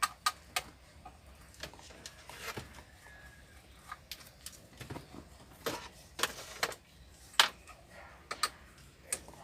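A series of sharp, irregular clicks and snaps from hand-tool work, such as wire cutters, during car-alarm wiring. The loudest snap comes about seven seconds in.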